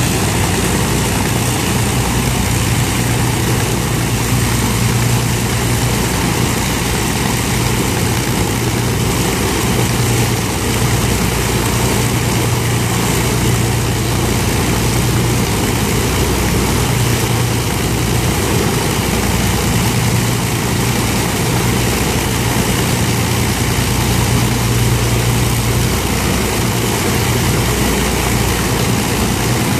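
Avro Lancaster's four Rolls-Royce Merlin V12 engines running together at low power with propellers turning. A loud, deep, even drone that holds steady throughout.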